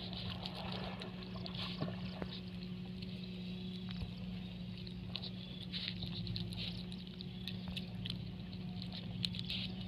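Puppy chewing and smacking as it eats from a plate, with irregular wet clicks and crackles.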